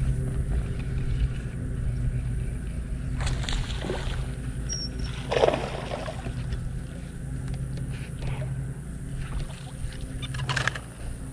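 A hooked bass splashing and thrashing at the water's surface beside a boat, loudest about halfway through, over a steady low hum and wind.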